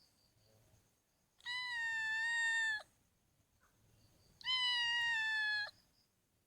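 Domestic cat meowing twice: two long, even-pitched meows about three seconds apart, each ending abruptly.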